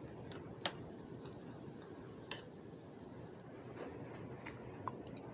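Eating sounds from a person eating noodles: a few short, sharp clicks over a steady low hiss, the loudest about half a second in, with others a little past the middle and near the end.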